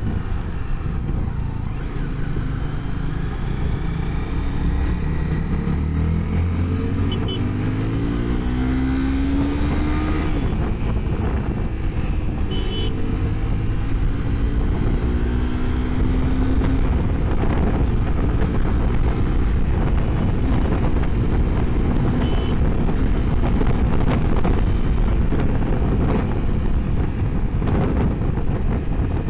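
Honda CBR250R's single-cylinder engine running under way, its pitch rising a few times as the rider accelerates, over a steady rush of wind on the microphone.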